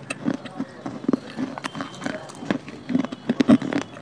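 Close-miked mouth crunching and chewing dry clay: an irregular run of crisp crunches and clicks, most dense and loudest about three and a half seconds in.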